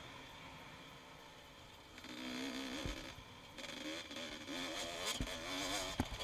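Honda CR250 two-stroke motocross bike's engine, fading off throttle for the first couple of seconds, then revving up and down repeatedly as it is ridden along a dirt track, with a few short sharp knocks.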